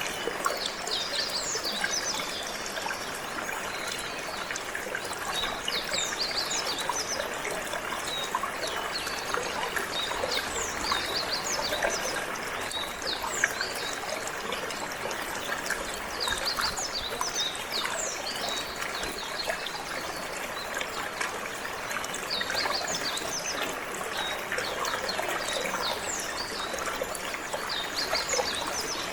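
Steady trickling, flowing water, with a canary singing over it in bursts of quick, high chirps and trills.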